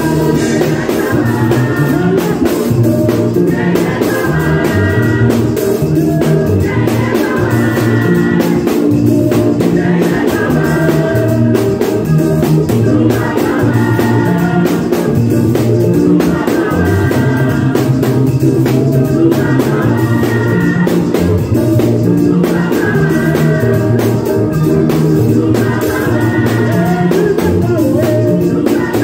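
Live gospel worship music: a drum kit played to a steady beat under a moving bass line, with voices singing repeated phrases.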